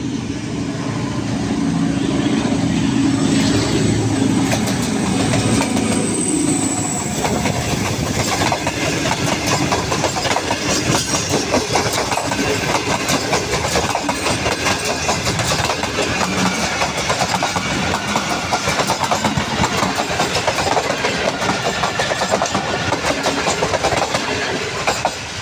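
A Pakistan Railways ZCU-20 diesel-electric locomotive passes close by with its engine running, with a thin high whine over it for a few seconds. A long train of passenger coaches follows, its wheels clacking rapidly and steadily over the rail joints.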